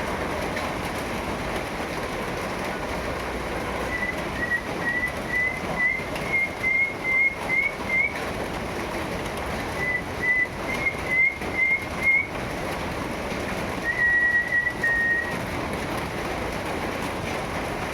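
Steady rain falling, with a series of short rising whistled notes, about two a second, in two runs, then one longer held whistle near the end.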